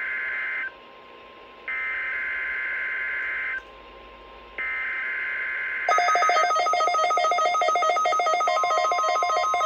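NOAA Weather Radio SAME alert header for a Required Weekly Test: three bursts of harsh two-tone digital data, each about two seconds long with a second of quiet between them. About six seconds in, a receiver's rapidly pulsing electronic alert beep sounds and keeps going.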